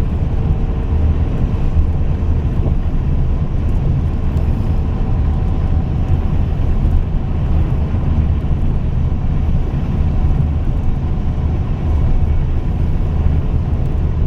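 Scania K420 coach's diesel engine running with a steady deep rumble.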